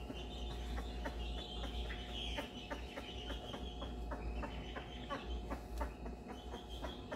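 Twelve-day-old basset hound puppies squealing in high-pitched, wavering cries, with many small clicks and a faint steady hum underneath.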